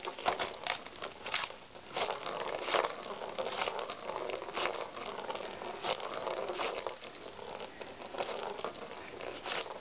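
A plastic ball rolling and rattling around the clear circular track of a cardboard-scratcher cat toy as cats bat at it, with frequent short knocks of paws and ball against the plastic.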